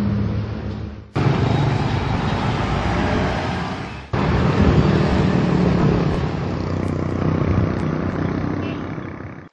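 Road traffic: motorbike and car engines running and passing, with a steady rushing noise over a low engine hum. The sound changes abruptly about a second in and again about four seconds in, where one clip cuts to the next.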